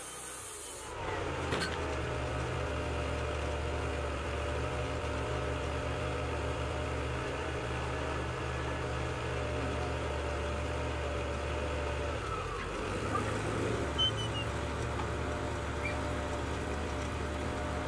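Wood-Mizer portable sawmill's engine running steadily.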